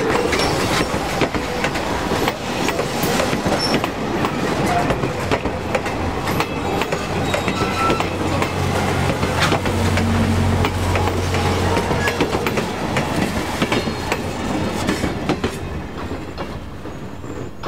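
Steel passenger coaches of a steam excursion train rolling past close by: a steady rumble with dense clicking and clatter of wheels over the rail joints, and a few brief wheel squeals. The sound fades as the last car passes near the end.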